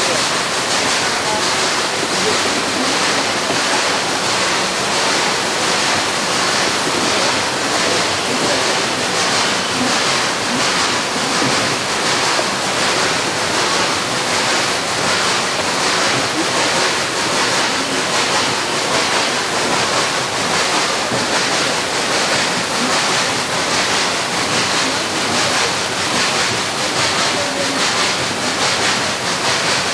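Steady rushing noise of a narrow-gauge cogwheel (rack) train running on its rack section, with a faint regular pulse in it.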